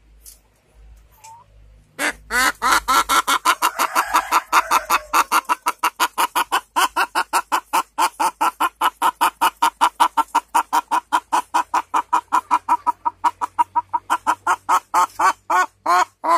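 Ayam kampung (Indonesian village chicken) hen clucking in a long, rapid run of short repeated calls, about six a second, starting about two seconds in. It is the restless call of a hen about to lay an egg and searching for a nesting spot.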